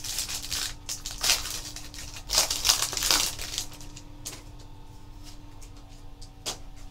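Foil trading-card pack wrapper being torn open and crinkled in the hands, crackling loudest about two to three seconds in. It then goes quieter, with a few faint ticks.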